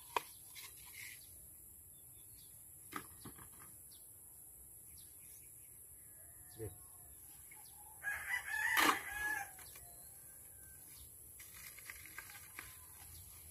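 A rooster crows once, about eight seconds in, the loudest sound here; a few short knocks sound before it.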